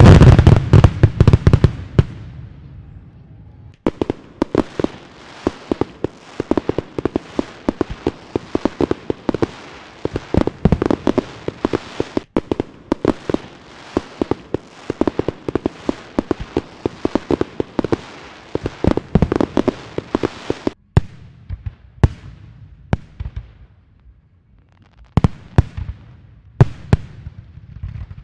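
Fireworks going off: a loud blast at the start dies away over about two seconds, followed by a long stretch of dense, rapid crackling, then scattered separate pops near the end.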